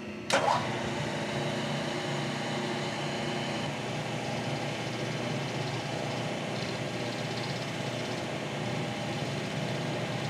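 Vertical milling machine running, its 5/8-inch ball end mill cutting a groove in a bronze bicycle crank arm, fed back and forth as it ramps down into the metal; a sharp clack right at the start, then a steady cutting and motor noise.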